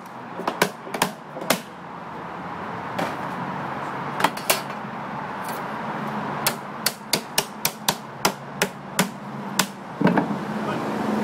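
Cooper's hammer knocking on a wooden whisky barrel: a few scattered sharp knocks, then a quicker run of about a dozen blows, roughly three a second, in the last few seconds.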